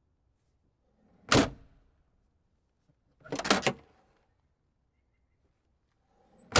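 Car trunk lid being worked: a single sharp slam about a second and a half in, a quick cluster of latch knocks and clunks in the middle, and another sharp slam at the very end.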